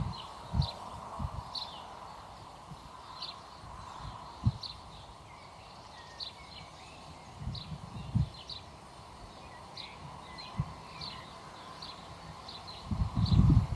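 Small birds chirping, short high calls repeating every second or so over a faint steady hum, with scattered low dull thumps, a cluster of them near the end.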